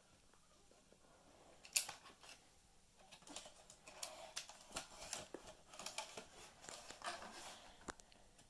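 Handling noise: one sharp click about two seconds in, then several seconds of irregular light clicks and rustling of plastic parts being moved.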